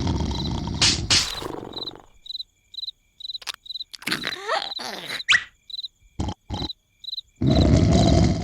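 Heavy snoring: one long, loud, rasping snore fades out about two seconds in, and the next starts near the end. In the quiet gap crickets chirp in an even pulse, with a few short squeaks and two clicks.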